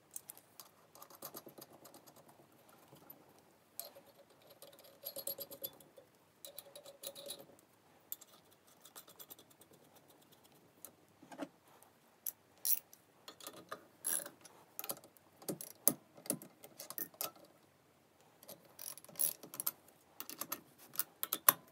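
Small metal parts clicking and clinking as nuts and washers are turned by hand onto the cylinder-head studs of a Fiat 126 BIS engine, irregular light ticks that grow denser and louder in the second half.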